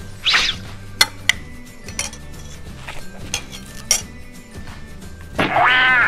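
A spoon clinking against a metal mixing pot and a paper cup as shortening is scraped into the pot: several sharp separate clinks, over background music. Near the end a short, loud pitched sound slides up and down.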